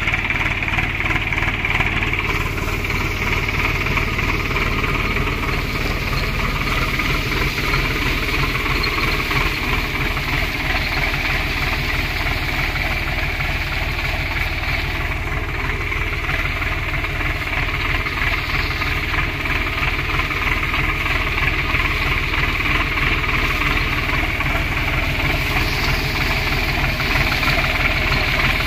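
Swaraj 744 XT tractor's three-cylinder diesel engine running steadily, with no change in speed.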